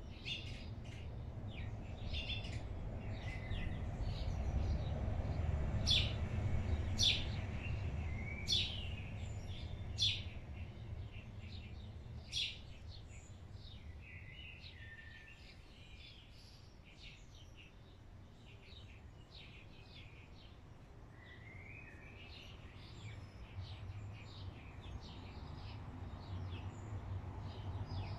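Small birds chirping in quick short calls, with a few sharper, louder chirps in the first half, over a low steady background rumble.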